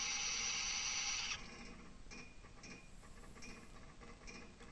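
Onboard audio of a small rocket in space, picked up through its metal body: a steady hiss that cuts off abruptly about a second in, then faint mechanical ticks about twice a second.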